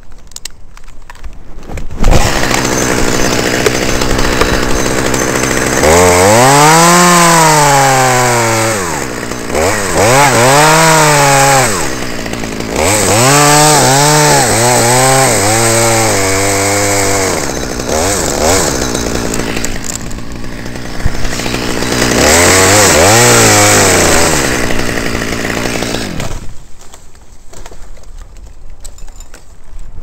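Top-handle chainsaw running and cutting into an ash trunk. It starts up loud about two seconds in, its engine pitch rises and falls several times, and it stops a few seconds before the end.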